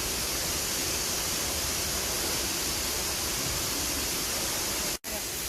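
Steady rushing of Hongjecheon's artificial waterfall, an even wash of falling water that cuts out for an instant near the end.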